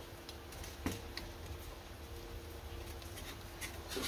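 Faint scattered clicks and light scraping as a soldering iron tip works solder on a thin copper strip clamped in an aluminium heatsink, with a faint steady hum beneath.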